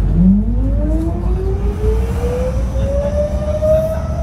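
Bus's ZF Ecomat automatic transmission whining loudly, the whine rising steadily in pitch as the bus pulls away and accelerates, over the low rumble of the engine.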